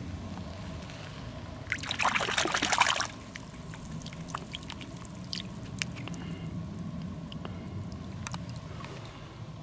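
A hand splashing and sloshing in a shallow muddy puddle while fishing out a small stone. The main splash comes about two seconds in and lasts about a second, followed by small drips and trickles of water.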